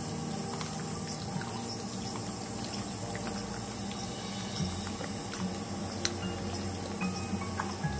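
A hand squelching chicken pieces through a thick, wet yogurt-and-egg marinade in a metal kadai, with a few small sharp clicks, over a steady background hum.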